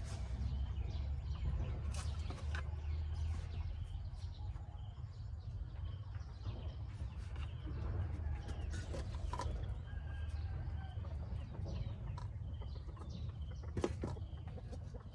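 Chickens clucking in scattered short calls, over a steady low rumble.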